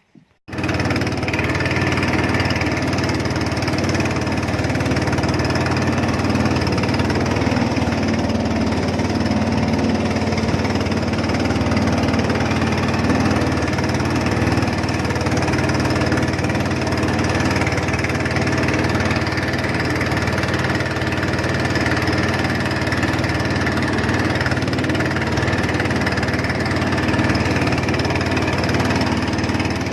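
Small fishing boat's engine running steadily with a low, even hum, starting abruptly just after the beginning.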